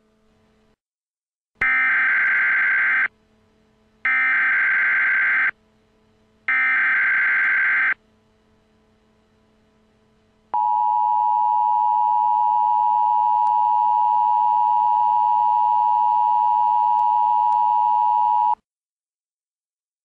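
Emergency Alert System tones: three harsh data-burst headers (SAME code) about a second apart, then the steady two-tone EAS attention signal for about eight seconds. Together they mark the start of an emergency alert broadcast.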